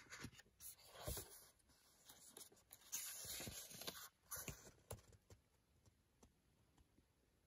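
Near silence with faint, short rustles of a paperback book being handled and opened; the longest, a soft papery hiss, comes about three seconds in, and the sounds stop about five seconds in.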